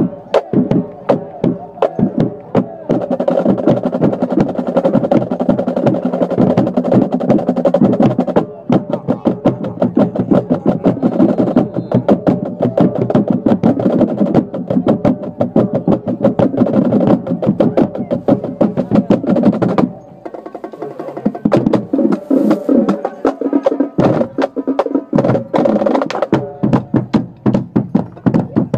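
Marching band playing a halftime show: sustained brass chords over rapid drum and percussion strokes. About twenty seconds in, the low brass drops out for a few seconds while the percussion keeps going, then the full band comes back in.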